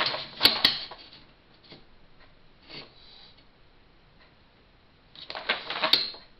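Metal straightedge being set down and shifted on a paper sheet on a tabletop. A few sharp clicks and knocks come at the start. After a quiet stretch with faint taps, a quick run of clattering clicks comes about five seconds in as it is handled again.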